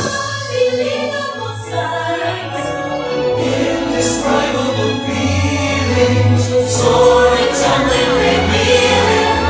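Show soundtrack music with a choir singing over a full orchestral backing, growing a little louder toward the end.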